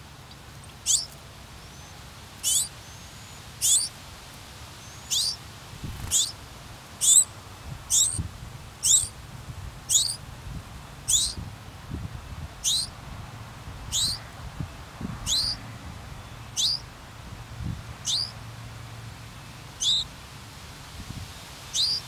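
Song sparrow calling at its nest: a short, high, thin note that sweeps downward in pitch, repeated steadily about once every second or so.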